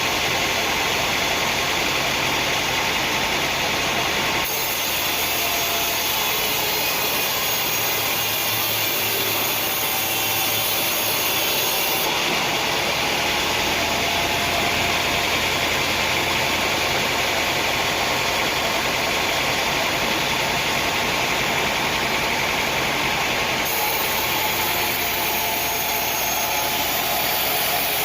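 Sawmill machinery running with a steady, loud mechanical noise. The noise changes character abruptly three times, about 4 seconds, 12 seconds and 24 seconds in.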